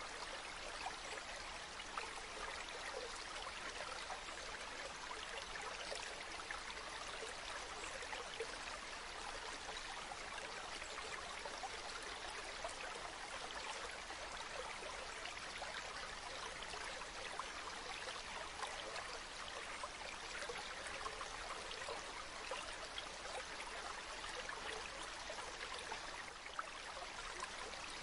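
A forest stream running steadily: a continuous rush of flowing water with many small splashes and trickles through it.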